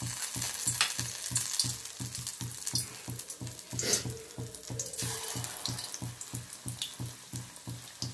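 Cauliflower florets in gram-flour batter deep-frying in hot oil in a metal kadai, sizzling and crackling with many small pops. There is a sharp clink about four seconds in, and a low hum underneath pulses about five times a second.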